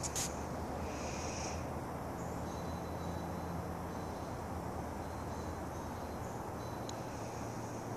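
Steady background rumble and hiss with a low hum, a few sharp clicks at the very start, and a brief high-pitched chirp about a second in.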